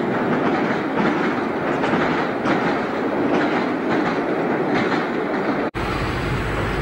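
BR Class 485/486 ex-London Underground electric train passing close by, its wheels clacking over the rail joints about twice a second. It cuts off abruptly near the end, giving way to a steadier low rumble.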